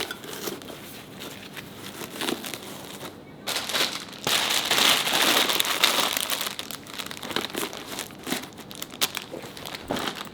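Packaging being crinkled and handled: irregular crackles and rustles, with a denser spell of crinkling from about three and a half to seven seconds in.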